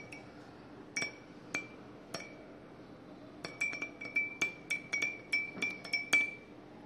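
Metal spoon clinking against the inside of a glass cup while stirring a hot drink, each clink ringing briefly. A few separate clinks come first, then a quick run of about four clinks a second for nearly three seconds near the end.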